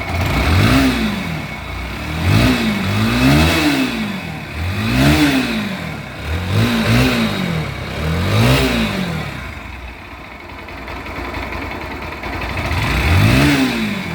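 Bajaj Pulsar NS motorcycle's single-cylinder engine, freshly rebuilt after seizing from oil starvation, idling and being revved in repeated short throttle blips, each rising and falling in pitch. It settles to a steady idle for a few seconds near the end, then is revved once more.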